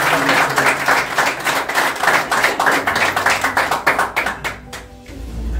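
A small group of people clapping, many hands at once, the applause thinning out and dying away about four and a half seconds in.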